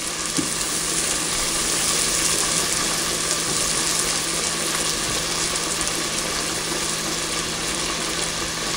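Biscuit dough sizzling in hot butter in a cast-iron skillet: a steady frying hiss.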